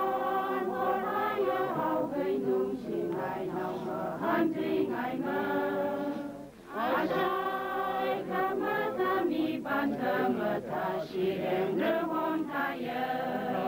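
A large choir, mostly women's voices, singing a hymn together. The singing breaks off briefly about six and a half seconds in, then carries on.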